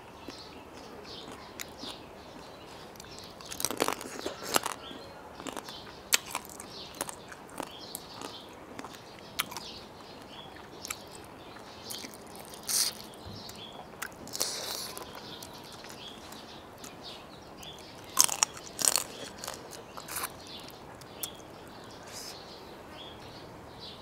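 A person biting and chewing pieces of crab, close to the microphone. Scattered sharp crunches and mouth clicks come irregularly, with a few louder crunches about four seconds in and again a little past the middle.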